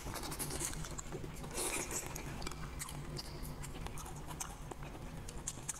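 Close-up mouth sounds of someone chewing braised meat: wet chewing, sucking and lip smacks, several short clicks a second.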